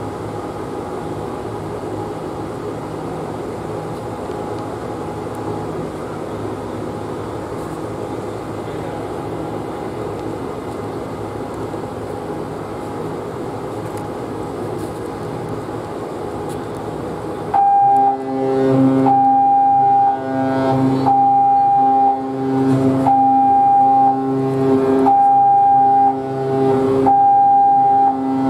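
Steady background hum. Then, about two-thirds of the way in, the cruise ship Carnival Paradise starts sounding the general emergency alarm: a run of short, loud, deep blasts on the ship's whistle, about one every two seconds, the first of the seven or more short blasts that come before the long one.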